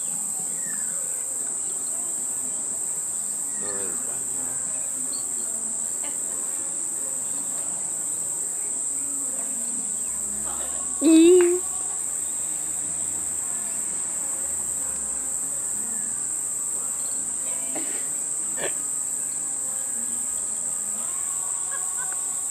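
Steady high-pitched insect chorus. A short, loud voice-like sound with a slight rise in pitch comes about halfway through.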